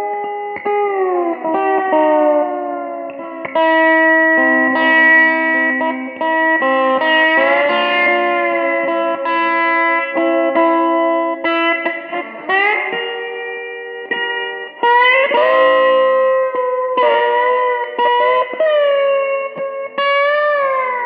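Modified electric six-string guitar played with a slide: blues phrases of held notes that slide up and down in pitch between them.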